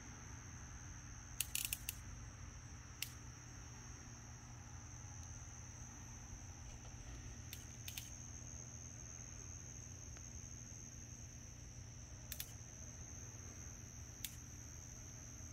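Crickets trilling steadily in a high pitch, with a few sharp clicks from handling the camera, a cluster of them about a second and a half in and single ones later.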